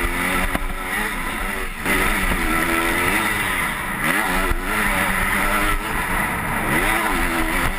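Motocross bike engine heard from the rider's helmet, revving up and down repeatedly as it accelerates along a dirt track, the pitch rising and falling several times with brief dips where the throttle comes off.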